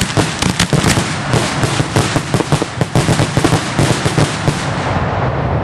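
Fireworks going off in a rapid, dense barrage of bangs and crackles, thinning out near the end.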